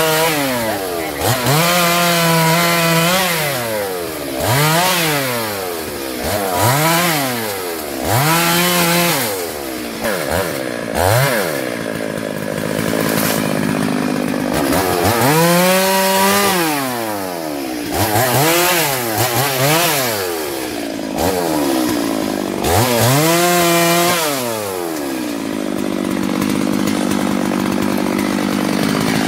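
STIHL MS 382 two-stroke chainsaw cutting up felled branches and logs. The engine is opened up to full throttle and let back down again and again, about nine times, each cut held briefly at the top. Near the end it runs at a steady, lower speed.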